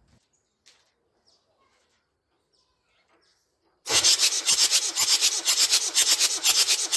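Land Rover 12J 2.5-litre diesel engine cranked over by its starter motor with the fuel cut off, for a compression test. It starts suddenly about four seconds in as a loud, fast, even rhythm of about five pulses a second.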